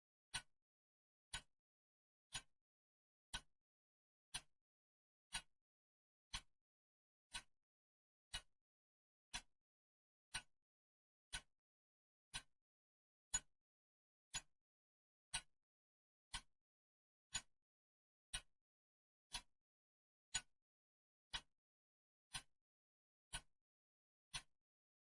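Clock ticking steadily once a second, each tick a short, sharp click, with silence between ticks.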